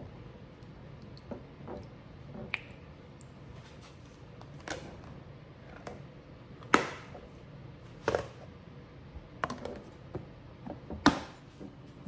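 Scattered light taps and knocks of kitchen bowls and utensils being handled: several separate clicks spread through the stretch, the sharpest about seven seconds in and just before the end.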